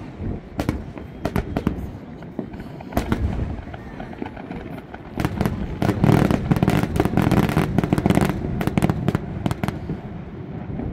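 Aerial fireworks shells bursting in a run of sharp bangs, which thicken about five seconds in into a dense, rapid barrage of bangs and crackles. The barrage thins out about four seconds later.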